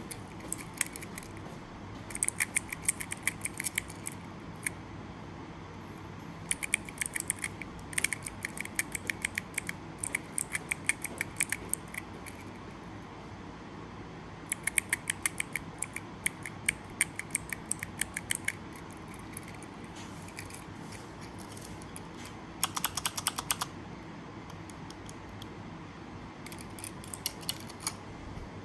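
Typing on a mechanical keyboard fitted with the keycaps: quick runs of key clacks in several bursts, with pauses between them and a fast, dense run near the end.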